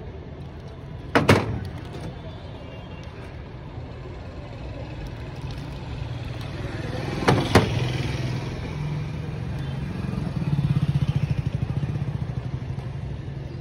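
Steady street traffic rumble. A motorcycle engine runs close by, swelling louder for a few seconds near the end and then fading. Two sharp knocks land, one about a second in and another about seven seconds in.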